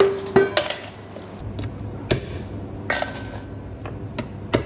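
Kitchen knife chopping the tips off small sea snail shells on a plastic cutting board: a handful of sharp, irregularly spaced knocks as the blade cracks through shell and hits the board. The tips are cut so the snails can be sucked out of the shell.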